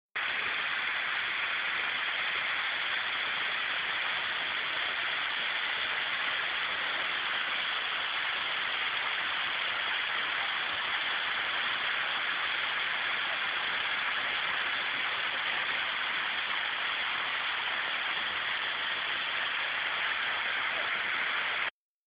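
Waterfall: a steady, even rush of falling water, breaking off abruptly near the end.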